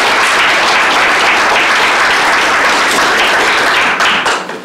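Audience clapping in a room, a steady dense applause that dies away about four seconds in.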